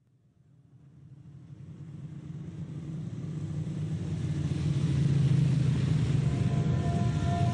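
A low rumbling drone fading in from silence and swelling steadily over several seconds, with a faint held tone coming in near the end.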